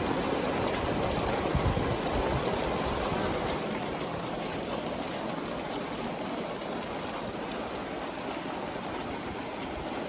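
Very heavy rain pouring down, a dense, steady hiss of water. It is a little louder, with more low rumble, for the first three seconds or so, then settles to an even level.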